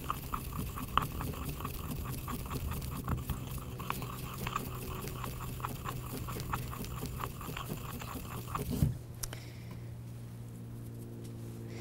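Dried culinary lavender buds being ground in a mortar with a pestle: quick repeated crunching and scraping strokes. They stop about nine seconds in with a knock of the pestle against the mortar.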